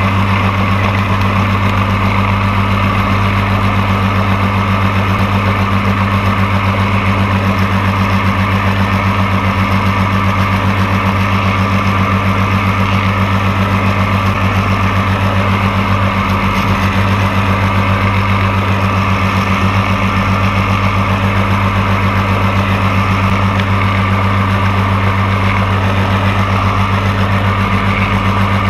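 Kawasaki 440A two-stroke twin engine of a Cumulus motorglider running steadily under power with its propeller, during takeoff and climb-out. The engine note is loud and holds one even pitch throughout.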